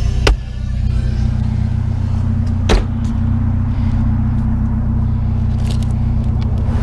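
Truck engine idling steadily, with a sharp knock just after the start and a louder one near three seconds in.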